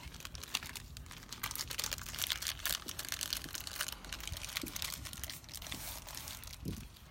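Hands handling the doorbell wire extension kit's wires and connectors: light, irregular crinkling and rustling with many small clicks.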